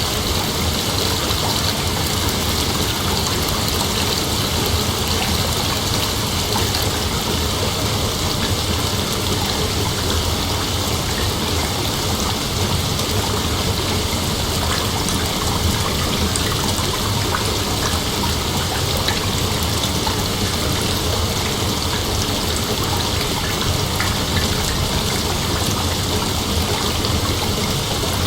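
Steady rain, an even, unbroken hiss with no thunder.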